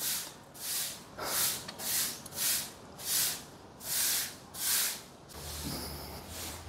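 A broom sweeping: about eight quick, swishing strokes at roughly two a second, which stop about five seconds in, followed by a faint low hum.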